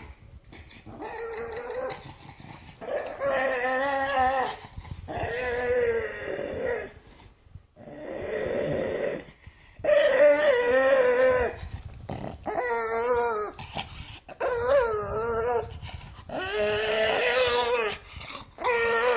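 Pug making a string of drawn-out, wavering growl-whines, each a second or two long with short gaps between. One call a little before the middle is breathy and unpitched.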